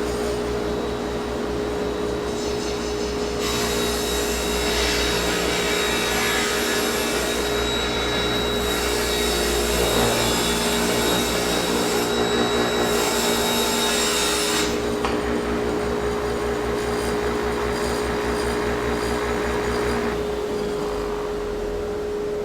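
Table saw ripping a strip of Baltic birch plywood: the blade runs with a steady hum, and the cut through the wood is loud and gritty from a few seconds in until about two-thirds of the way through. The saw's low rumble drops away near the end while a steady hum carries on.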